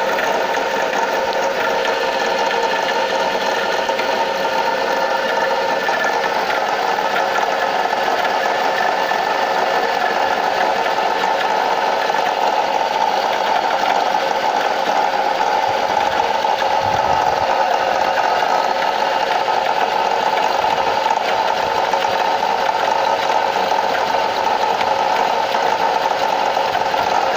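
Nissan Primera P12's engine running steadily with a fast, even knocking clatter. This is the engine knock shown as the car's fault.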